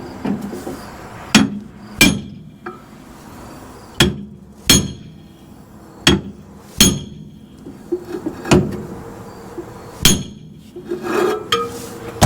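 Hammer blows on the bent steel front frame of a 1966 Ford Ranchero: about eight sharp metallic strikes with a short ring, coming in pairs every couple of seconds, as the curled-up frame section is tapped back into shape while a jack pushes up beneath it.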